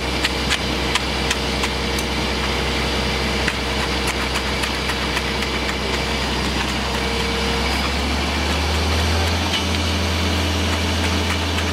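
Concrete pump truck's diesel engine running steadily, with sharp clicks and knocks over it, mostly in the first few seconds. The engine speeds up about eight seconds in.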